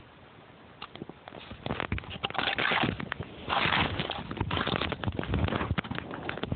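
Irregular crunches and scrapes on packed snow as someone crawls through a snow tunnel. They come louder in a few bursts between about two and five seconds in.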